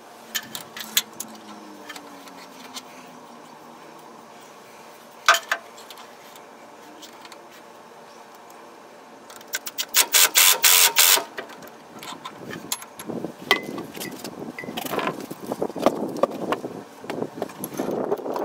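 A gear puller being worked on the crankshaft timing gear of a Ford 4.9-litre inline-six: scattered metal clinks and rattles of the puller's jaws and screw, then just past the middle a cordless impact driver hammers briefly on the puller's forcing screw, the loudest sound. Irregular metal rattling and clicking of the puller follows.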